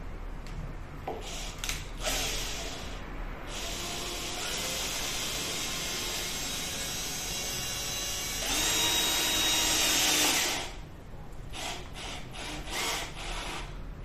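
Cordless drill-driver with a Torx bit driving a screw into a melamine furniture panel: a few short bursts of the motor, then a long steady run of about eight seconds that gets louder and higher for its last couple of seconds, then a few more short bursts.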